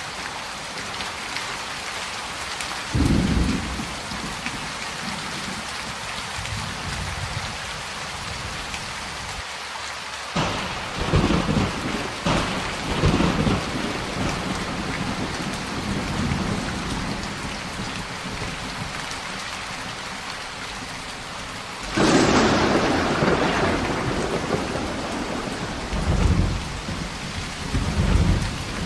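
Steady heavy rain with rolling thunder: rumbles about three seconds in and again around eleven to thirteen seconds, then a sudden loud thunderclap about twenty-two seconds in that rolls on for several seconds, with more rumbles near the end.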